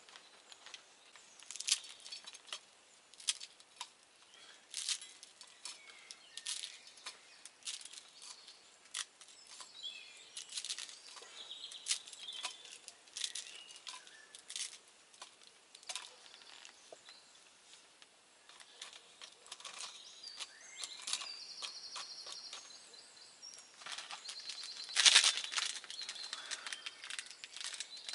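Wood campfire crackling with irregular sharp pops and snaps, with birds chirping in the woods behind and a louder burst near the end.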